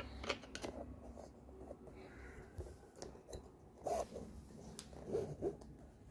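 Scattered knocks, clicks and scrapes of a heavy subwoofer cabinet being handled and turned upside down.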